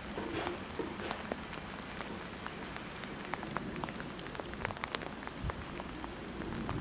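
Scattered light ticks and patters at an irregular pace over a steady low hiss.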